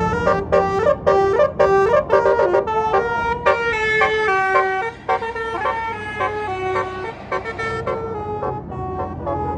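A tour bus's basuri (telolet) musical air horn playing a tune: a run of short, quickly repeated notes stepping up and down in pitch, then longer held notes from about four seconds in.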